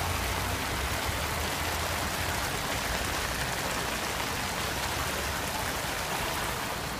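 Storm water gushing up around a street manhole cover and rushing over flooded paving, a steady rushing hiss: the storm sewer is overflowing after a downpour.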